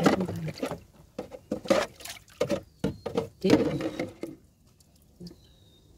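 Irregular knocks and scrapes in a plastic boat hull as a crab is grabbed from the bottom of the boat, with a brief exclamation about three seconds in.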